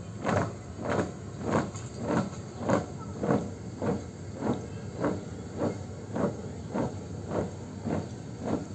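Marching squad marking time in place: feet stamping the ground together in a steady, even beat of a little under two steps a second.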